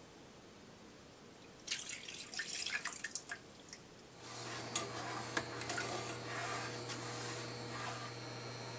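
Water poured from a plastic measuring cup into a non-stick frying pan: a few irregular splashes about two seconds in, then a steady pouring stream with drips and a low hum from about four seconds in.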